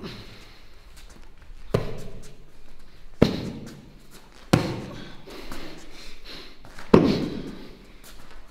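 Padded boxing gloves landing body punches on a person's torso: a light blow at the start, then four heavy thuds spaced over about seven seconds, each with a short echo.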